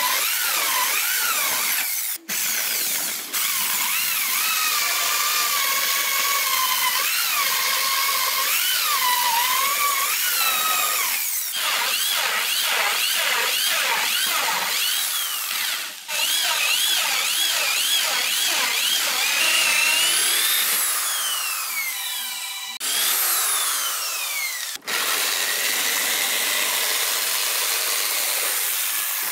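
Electric drill with a hole saw boring through plywood, its motor whine wavering up and down as the load changes, broken by several abrupt cuts. Near the end, a jigsaw cutting the plywood with a steadier noise.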